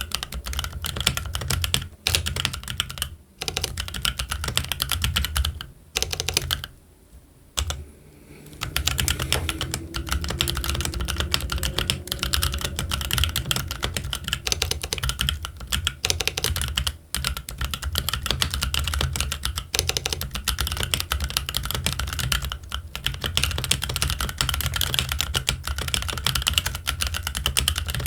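Continuous typing on a Keychron Q1 mechanical keyboard with Gazzew Boba U4T silent tactile switches and ABS Cherry-profile keycaps. The keystrokes come in a dense stream with a few brief pauses; the longest, about two seconds, comes around seven seconds in.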